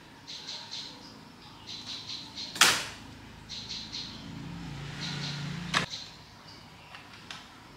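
Two sharp clicks or knocks, a loud one about two and a half seconds in and another near six seconds, the second preceded by a brief low hum. Through the whole stretch a small bird chirps in quick groups of about three, repeating every second or two.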